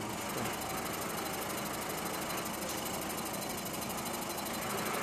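Line-boring machine running: the boring bar turns and its cutter bores out the camshaft bearing bore of a Mitsubishi Galant 2.0 cylinder head, a steady, fast mechanical rattle.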